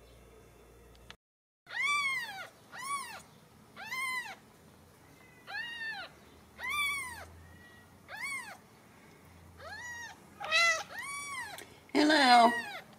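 Newborn Ragdoll kittens mewing: starting about two seconds in, a string of about ten high, arching cries, each rising and falling in pitch and lasting under a second. Near the end a louder, lower, rougher call overlaps them.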